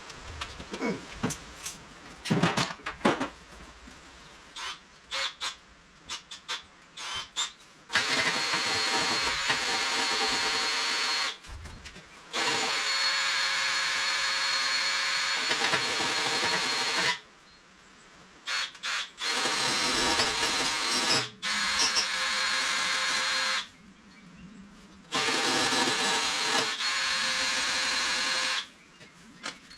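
A power tool's motor running at high speed in five bursts of a few seconds each, each starting and stopping abruptly. Scattered clicks and knocks come before the first burst.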